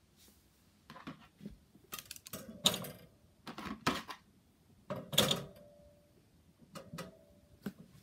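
Waffles being slid down into the single wide slot of a Maxim ET-9 toaster, scraping and knocking against the slot's guides in a string of short rubbing scrapes and clunks. The two loudest come about two and a half and five seconds in.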